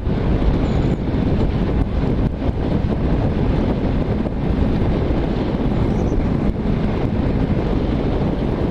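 Steady wind noise on the rider's microphone with a Yamaha MT-03 motorcycle running underneath, while the bike is ridden along at speed.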